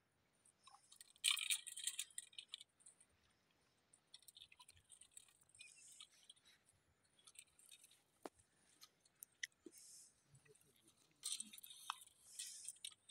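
Spinning fishing reel being cranked in short spells: a faint high-pitched whirring rustle with scattered light clicks.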